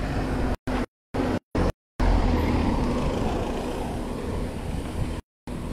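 Road traffic noise from a car going by on the street, loudest from about two seconds in and slowly fading. The sound drops out to silence several times in the first two seconds and again near the end.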